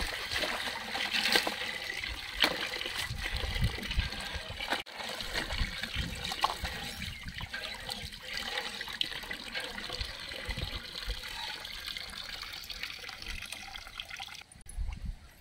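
Water gushing from a hand pump's spout into a tub, splashing as radishes and other vegetables are rubbed clean under the stream. The flow stops near the end.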